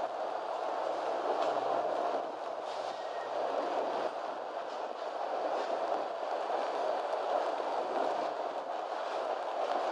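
Passenger train rolling along the track: a steady rumble of the coaches with faint clicks of the wheels here and there.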